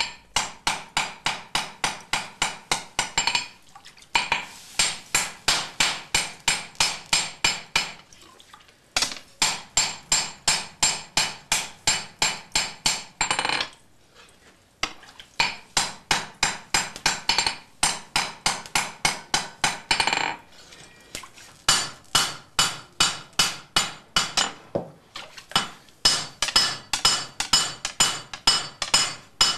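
Hand hammer striking a red-hot steel sword blade on an anvil in quick runs of about four blows a second, each blow ringing, with short pauses between the runs. This is hizukuri: the swordsmith hammering the bar into the blade's shape and curvature.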